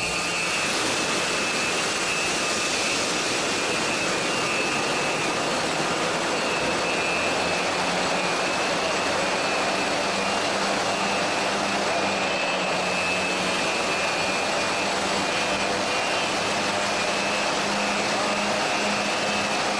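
High-expansion foam generators discharging, a steady rushing noise of air and spray with a faint hum from the generators' fans.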